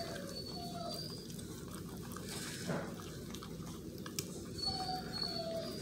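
Basset hound puppies whimpering while they eat mush from a shared pan: a run of short, slightly falling whimpers at the start and another near the end, with a soft knock in between.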